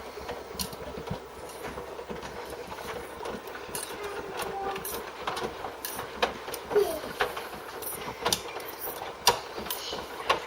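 Panasonic washing machine running with a steady low hum, broken by irregular sharp clicks and knocks, a few louder ones in the second half.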